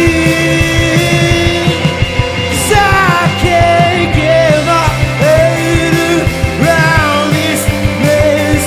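Rock band playing live: electric guitars over a drum kit with cymbals, keeping a steady beat.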